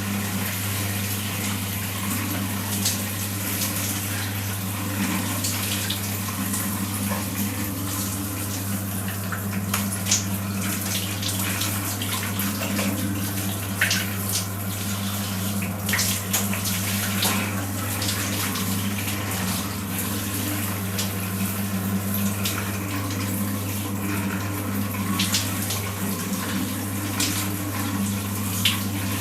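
Water running steadily in a bathroom, with scattered small splashes and knocks over a steady low hum.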